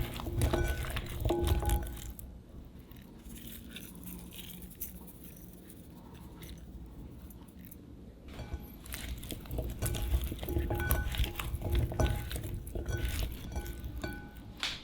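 Kitchen utensils clinking against a bowl, with short ringing taps. It comes in two bouts: one over the first two seconds and a longer one from about the middle to near the end, with quieter handling in between.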